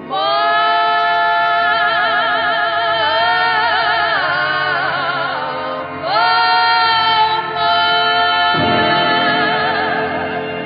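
A singer holding long notes with strong vibrato in two long phrases, over a steady accompaniment, in the closing bars of a song.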